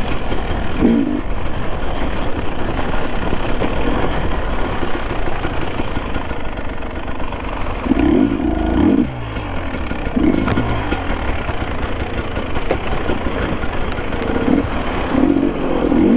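Sherco enduro motorcycle engine running while being ridden, the revs rising and falling, under a constant rush of noise.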